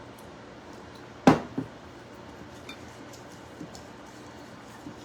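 A hard kitchen item set down with a sharp knock about a second in, a lighter knock just after, then a few faint clicks of things being handled on the counter.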